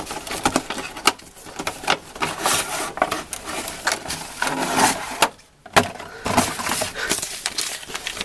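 A product box being opened by hand and its packaging handled: rubbing, scraping and sharp clicks, with a short pause about five and a half seconds in.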